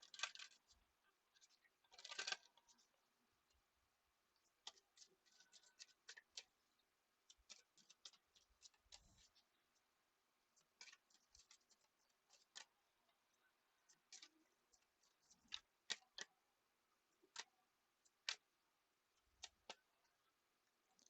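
Near silence, broken by faint, scattered short clicks and a couple of brief soft rustles near the start.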